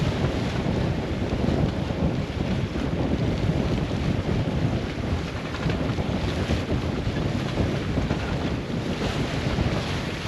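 Strong wind buffeting the microphone aboard a sailing yacht at sea, over the wash of waves.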